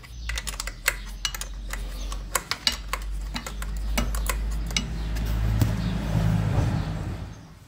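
Small metallic clicks and clinks of a wrench working the nut that holds the carburettor to a Yamaha 25 HP outboard motor. A low rumble and a rough hiss build in the second half and fade away just before the end.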